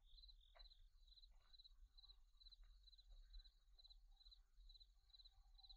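Near silence: room tone with a faint high chirp repeating two to three times a second over a low hum.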